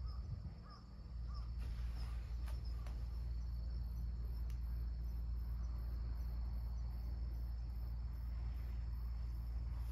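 Autumn insects chirping steadily in a high, regularly pulsing trill, over a steady low rumble that comes in about a second in.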